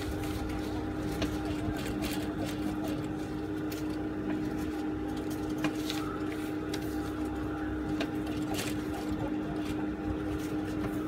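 Juki industrial sewing machine running with a steady hum, with scattered light clicks.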